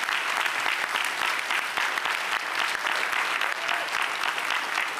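Crowd applauding: dense, steady clapping from many hands.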